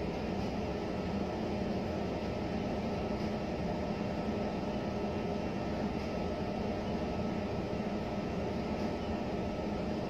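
A steady, even background hum with a faint high tone running through it, with no distinct events.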